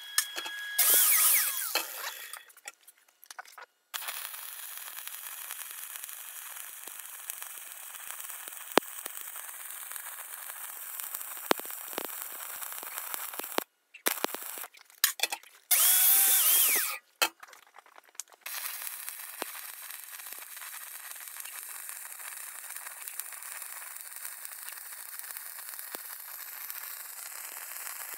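Stick (SMAW) welding arc crackling and hissing steadily as a weld pass is run on a test plate. It breaks off around fourteen seconds for an electrode change, with a short loud scraping clatter, then the arc runs steadily again.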